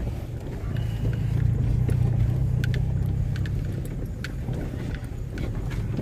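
Car driving slowly over a dirt road, heard from inside the cabin: a steady low rumble of engine and tyres, with a few light clicks and knocks from gravel and the rough surface.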